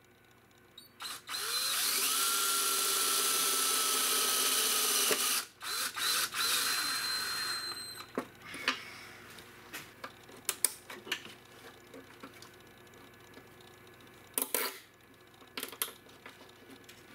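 DeWalt cordless drill/driver with a nut-driver bit, driving a screw through a relay's mounting tab into sheet metal. It runs steadily for about four seconds with a faint whine, then gives a few short bursts as the screw seats. Clicks and handling noises follow.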